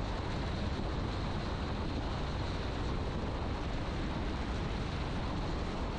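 Steady engine and propeller drone heard inside the cockpit of a Piper Archer PA-28-180 on final approach, its four-cylinder Lycoming engine running evenly with no change in pitch.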